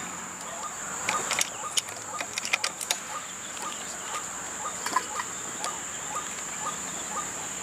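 White-breasted waterhen calls: a steady series of short clucking notes, about two a second. There is a run of sharp clicks in the first few seconds, and a steady high insect drone underneath.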